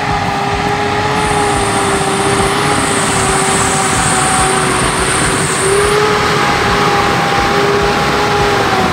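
Mitsubishi L200 pickup's engine held at high revs with a steady whine while its mud tyres spin and churn through deep mud. The sound cuts off abruptly near the end.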